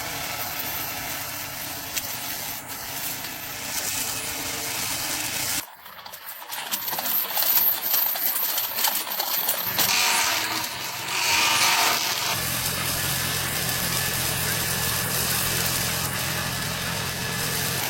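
Remote-control robot lawn mower running through grass, a harsh mechanical clatter with a sudden break and change in sound about six seconds in.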